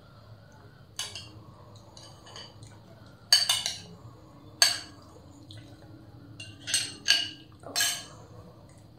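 A metal spoon clinking against a glass serving bowl as mutton curry is spooned out onto rice: several sharp, separate clinks spread over the stretch, with quieter handling sounds between them.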